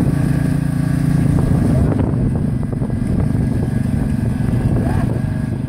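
John Deere ride-on lawn mower's engine running, steady at first and then turning rougher about a second and a half in.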